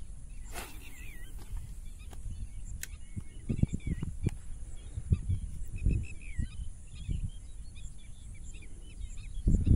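A fishing rod swishes through a cast about half a second in. Small birds chirp and call in the background, over scattered low thumps.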